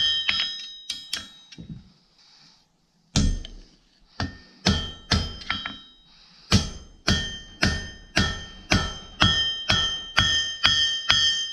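Hammer blows on hot steel at the anvil, each blow ringing with a metallic tone, about two a second, with a pause of about a second after two seconds, then a few irregular blows before a steady rhythm resumes.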